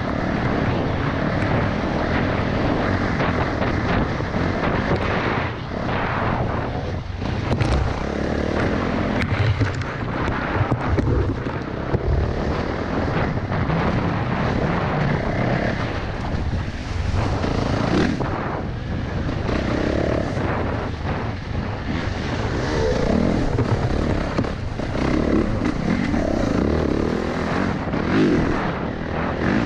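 Dirt bike engine running under way, its revs rising and falling as the bike speeds up and slows, with occasional sharp knocks from the bike over rough ground.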